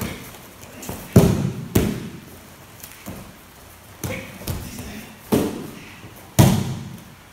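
Bodies landing on the training mats as aikido throws are taken: a series of about five heavy thuds, irregularly spaced, each with a short echo.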